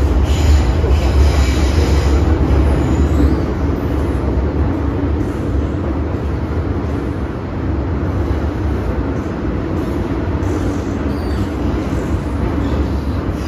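MTR M-train electric multiple unit running through a tunnel, heard from inside the carriage: a steady rumble of wheels and running gear, with a high whine that fades out about three seconds in as the sound eases slightly.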